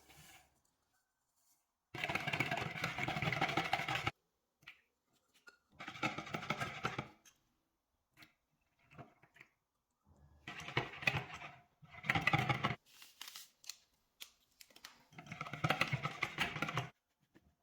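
A small electric kitchen motor, such as a hand mixer or blender, runs in five short bursts, starting and stopping abruptly each time.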